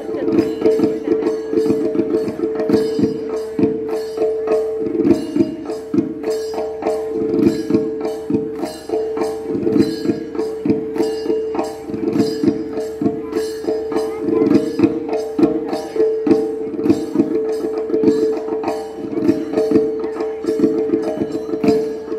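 Padayani ritual music from Kerala: drums beating a quick, steady rhythm under one continuous held tone.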